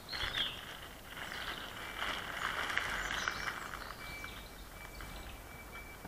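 Outdoor ambience: birds chirping, over a low, steady background rumble.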